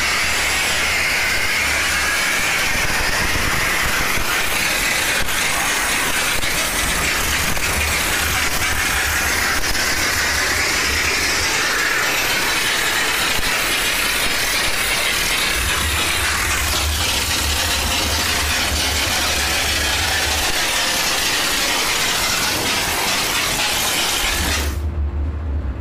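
Steam car-wash machine in use: a steady hiss of steam jetting from the spray nozzle, with a low machine hum that switches on and off every few seconds. Near the end the hiss stops for about two seconds while the hum carries on.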